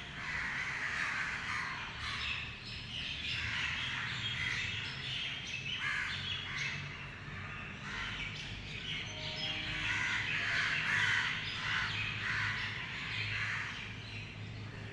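Many birds chirping and calling over one another without a break, with a low steady hum underneath.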